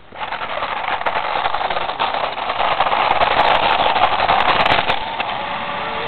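Remote-control toy car running over gravel: its electric motor whirs while the stones crunch and crackle under the tyres. It starts abruptly and is loudest in the middle.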